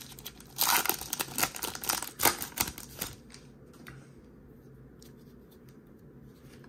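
Foil wrapper of a Topps baseball card pack crinkling and tearing open, a quick run of crackles and snaps for about three seconds, then only faint handling of the cards.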